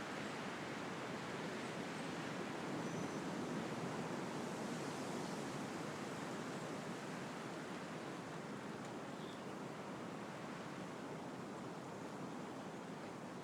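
Wind blowing through the leaves of trees, a steady rushing that swells a little a few seconds in and then eases, with a few faint, brief bird chirps.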